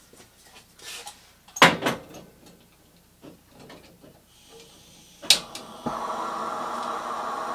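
Campingaz gas lantern on a screw-thread cartridge: a clunk as it is set down, a faint gas hiss as its valve is opened, a sharp click about five seconds in, then the lantern lighting into a steady burning hiss.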